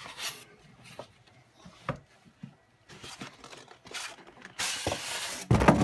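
Styrofoam packing and cardboard box being handled: scattered scrapes and rustles, a longer scrape about five seconds in, then a loud thump near the end.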